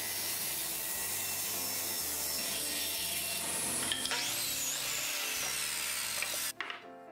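Power saws cutting wood: a table saw ripping a board, then a power miter saw crosscutting, with a falling whine a little past halfway as a blade spins down. The noise cuts off sharply near the end.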